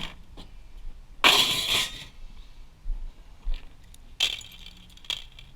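Metal parts clattering and clinking as pieces of a server blade are pulled apart and tossed by hand. The longest, loudest rattle comes about a second in, with two sharper clinks near the end.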